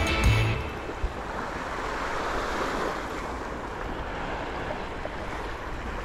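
Surf washing over a rocky breakwater, a steady rush of water with wind on the microphone, and a single sharp click about a second in.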